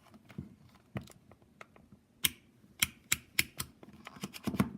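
Rotary selector dial of a cheap $4 digital multimeter being turned, clicking through its notchy detents in a series of sharp, uneven clicks that grow louder and closer together from about two seconds in.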